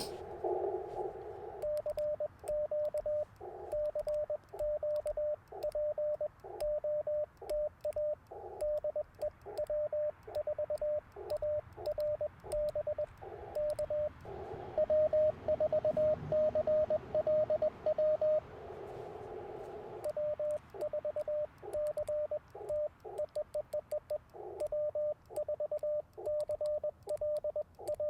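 Morse code from an Icom IC-705 transceiver's speaker: a steady tone of about 600 Hz keyed in rapid dots and dashes, with short stretches of band hiss through the narrow CW filter between transmissions, near the start and about two-thirds of the way in.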